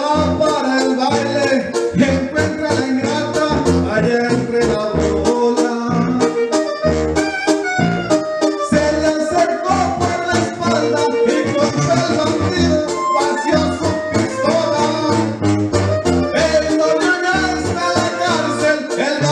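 Karaoke backing music with accordion over a steady bass beat, in a Latin style, with a man singing along into a microphone.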